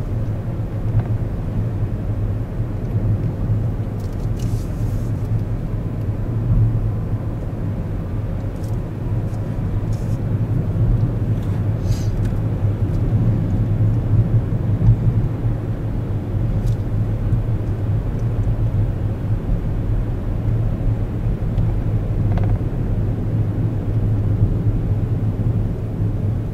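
Steady low rumble of a moving vehicle, with a few faint ticks.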